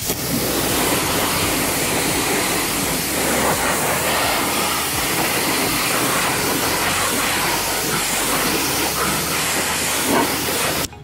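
Pressure-washer wand spraying a fan jet of water onto a car's alloy wheel and tyre, rinsing it: a loud, steady hiss of spray that starts at once and cuts off near the end.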